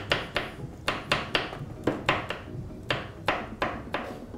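Kitchen knife chopping a green chili on a wooden cutting board: a series of sharp knocks as the blade strikes the board, roughly three a second in uneven runs.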